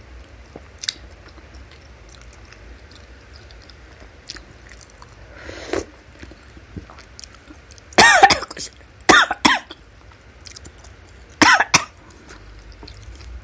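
A woman coughing hard in fits after choking on a mouthful of food: a burst of three or four coughs about eight seconds in, then two more near the end. Before the coughing, quiet chewing and slurping of noodle soup.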